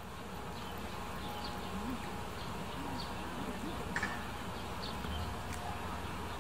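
Background ambience: short, high bird chirps every second or so over a steady hum, with faint distant voices and one brief click about four seconds in.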